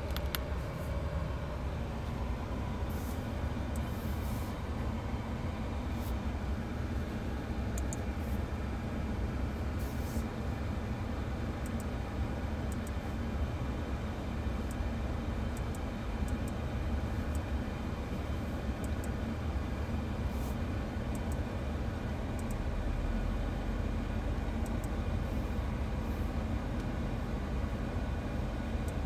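Steady low rumble of the 2022 Audi A8 L's 3.0-litre turbocharged V6 running, with road or rolling noise, growing a little louder and deeper about two-thirds of the way through. Faint scattered ticks sit above it.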